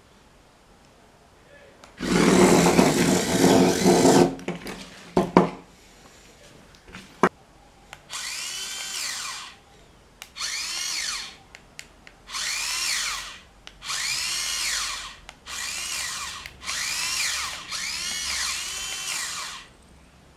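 Small DC gear motors of an Arduino robot car, driven by an L298N motor driver, spinning the wheels in short runs as the IR remote's buttons are pressed. There is a louder, rougher run about two seconds in. Then come six or seven separate whining runs of about a second each, every one rising and then falling in pitch.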